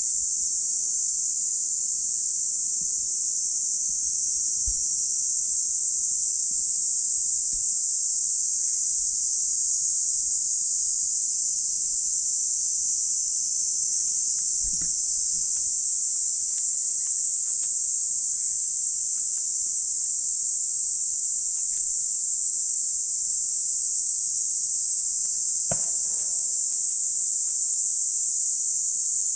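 A steady, dense, high-pitched chorus of insects running without a break. A few faint taps and rustles sound close by underneath it.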